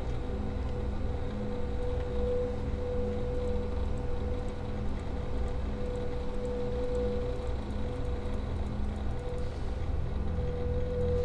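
A low, steady drone with a held mid-pitched note that swells and fades every few seconds.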